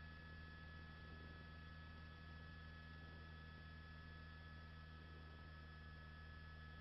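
Near silence: a faint steady hum with two faint steady high tones, nothing changing.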